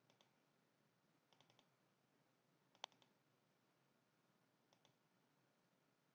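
Near silence with a few faint computer mouse clicks; the sharpest is about three seconds in.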